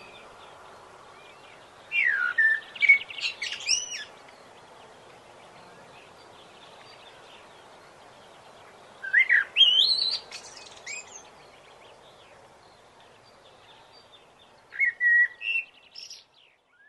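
A songbird singing three short phrases of quick chirps and whistled notes, several seconds apart, over a faint steady hiss. The sound cuts off abruptly near the end.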